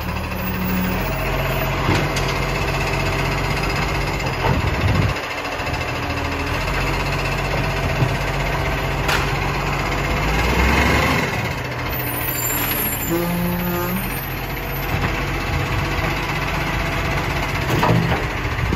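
Side-loading garbage truck's diesel engine running as it pulls up at kerbside wheelie bins, with scattered knocks and clunks from the truck and its lifting arm. A rushing hiss swells about halfway through.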